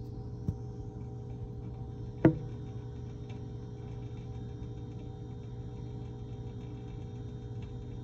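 Steady electrical hum with faint rapid ticking as a hamster licks at the metal guard of its water bottle. A small click comes about half a second in, and a sharp knock a little after two seconds.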